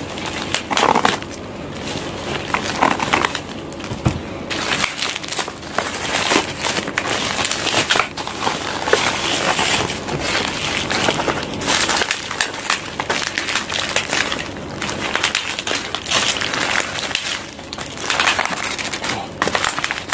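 Black bubble-wrap parcel packaging rustling and crinkling with many small irregular clicks as it is cut with scissors and pulled apart by hand.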